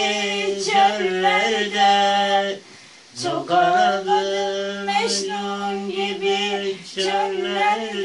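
A person singing unaccompanied, holding long, steady notes. The singing breaks off briefly about three seconds in for a breath and resumes on a low note that rises.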